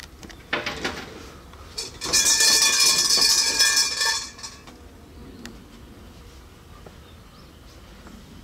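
Shrine bell (suzu) jangling as its rope is shaken: a short rattle about half a second in, then a louder metallic jangling with several ringing tones for about two seconds.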